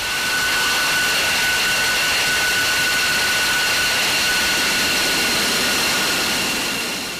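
F-22 Raptor's twin Pratt & Whitney F119 turbofans running at low taxi power: a steady rushing jet noise with a high, even whine over it. It swells in over the first second and fades near the end.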